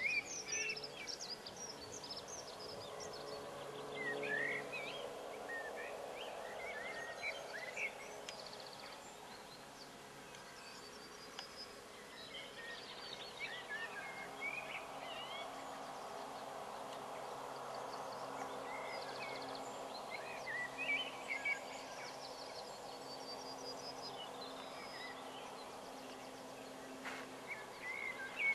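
Small wild birds chirping and singing in short bouts over a steady low background hum.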